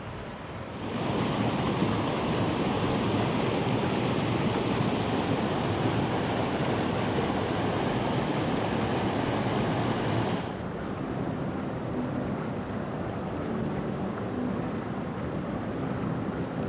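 Rushing white water of a rocky mountain river's rapids, a steady rush of noise. It swells about a second in and falls to a softer rush about ten seconds in.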